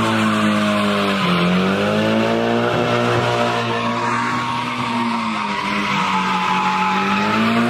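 A car doing donuts: the engine is held high in the revs, its pitch sagging twice and climbing back, over a continuous screech of spinning tires.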